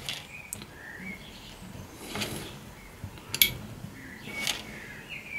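Quiet workbench sounds while a wire is soldered: a few brief soft clicks and rustles of handling, with faint short bird chirps in the background.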